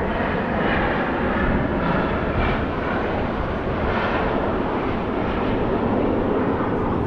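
Airplane flying overhead: a steady rush of engine noise with no breaks.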